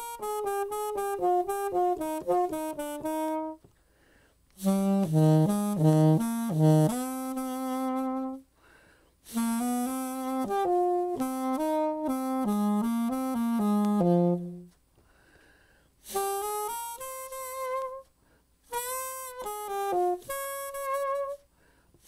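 Saxophone played inside a soundproofing practice mute, running quick up-and-down scale passages. It plays five phrases with short pauses between them.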